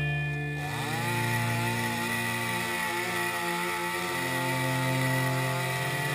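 Chainsaw engine revving up about a second in, then running hard and cutting into a fallen log, its pitch wavering slightly as the chain bites.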